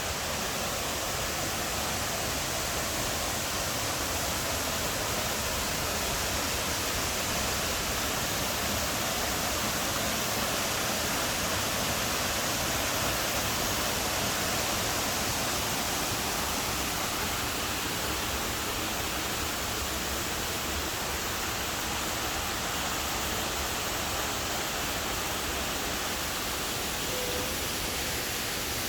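Waterfall cascading, a steady, unbroken rush of falling water.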